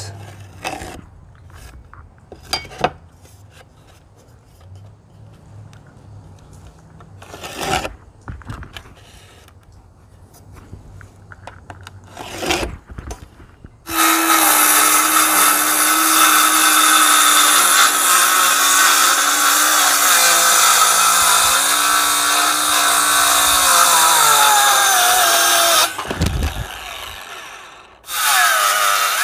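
Ryobi cordless circular saw ripping a wooden board lengthwise into slats. After a quieter stretch with a few knocks of the board being handled, the saw starts about halfway in and cuts loudly and steadily for about twelve seconds, its pitch sagging slightly under load. It stops, then starts cutting again near the end.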